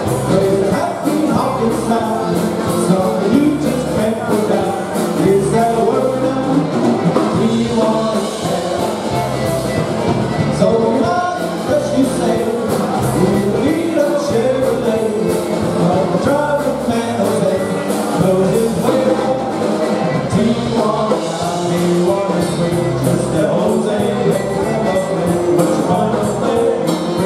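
Live polka dance band with accordion, horns and drum kit playing a dance tune with a steady beat.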